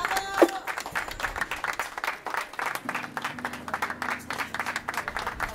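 Small crowd applauding with a dense patter of hand claps, a short gliding tone sounding just after the start and a steady low hum coming in about three seconds in.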